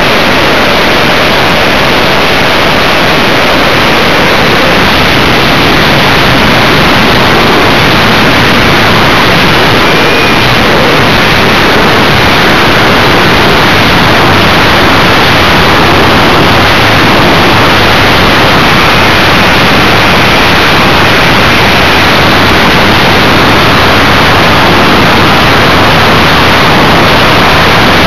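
Loud, steady rushing noise from a Multiplex Funjet Ultra radio-controlled model jet in flight, picked up by a small camera strapped to the airframe. The motor, propeller and wind on the microphone merge into one constant, overloaded hiss with no clear pitch.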